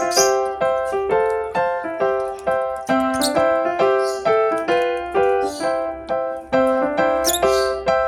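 Background piano music: a steady run of single struck notes, about two a second, each fading before the next.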